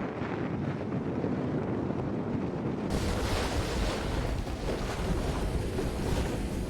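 Strong wind rushing and buffeting the microphone, a steady noisy roar. About three seconds in it abruptly changes to a louder, deeper rumbling rush.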